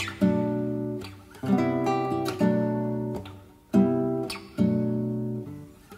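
Background music: an acoustic guitar strums about five chords, each left to ring and fade before the next.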